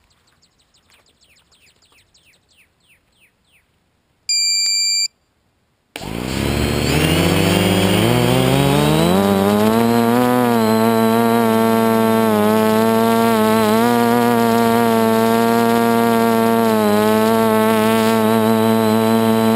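Faint chirping for the first few seconds, then a single electronic beep about four seconds in. About six seconds in, the electric motors and propellers of a radio-controlled aircraft start up and rise in pitch, then run at a steady whine with small dips as it lifts off.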